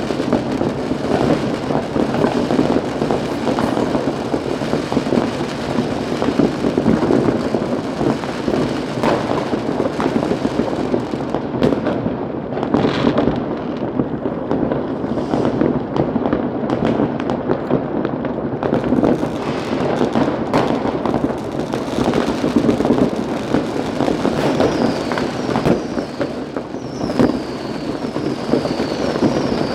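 Many fireworks and firecrackers going off at once in a dense, continuous crackle of bangs with no pause. In the last few seconds a high whistle falls in pitch again and again over the bangs.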